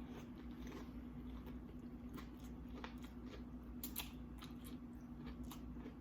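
Faint chewing and crunching of tortilla chips and seafood from a nacho platter, with scattered small mouth clicks, one slightly louder about four seconds in. A steady low hum runs underneath.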